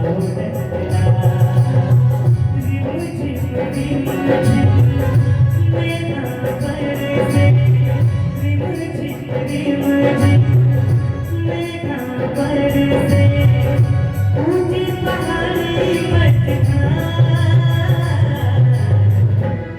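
Devotional bhajan music: a melodic passage over a steady, repeating rhythm, with no spoken words.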